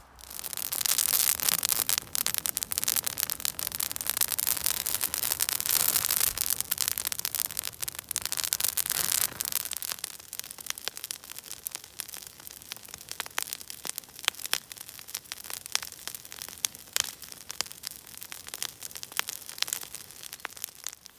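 A brush pile of branches burning, crackling and hissing. The crackle is dense and loud for about the first half, then thins to scattered sharp pops and cracks.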